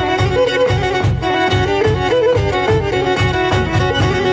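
Background music: a bowed fiddle playing a quick, ornamented melody over a steady, fast drum beat.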